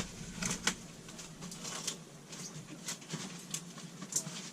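Irregular light clicks and taps, a few a second, over low background noise.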